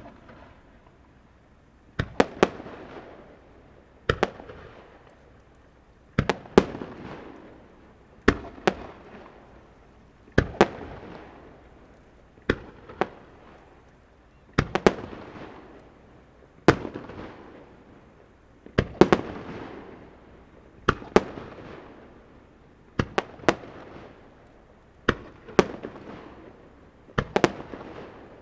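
Aerial firework shells bursting one after another, a sharp bang roughly every two seconds, often two bangs close together, each trailing off in a fading rumble.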